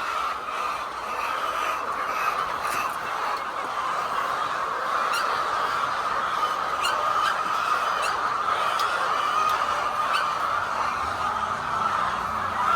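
A large flock of laying hens clucking and calling together, a dense steady chatter, with a few short sharp clicks in the middle.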